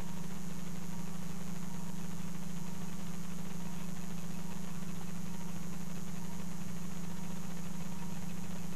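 Steady low machine hum from operating-room equipment, unchanging in pitch and level.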